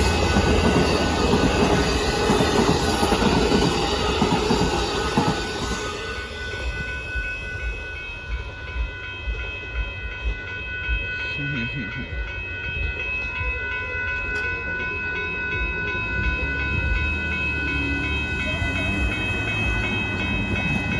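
Amtrak Texas Eagle passenger train passing at speed, with a loud rumble and rail noise for the first several seconds that then eases off as it goes by. A steady, several-note ringing tone starts about six seconds in and cuts off near the end.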